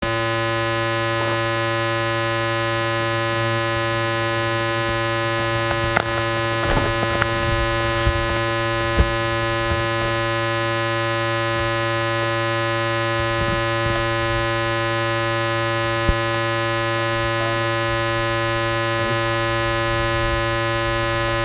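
Steady electrical hum with a dense stack of even overtones, unchanging throughout, with a few faint knocks.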